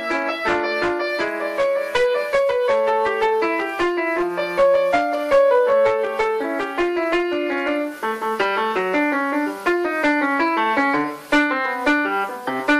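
Grand piano played solo: a quick, continuous stream of notes over a lower moving line.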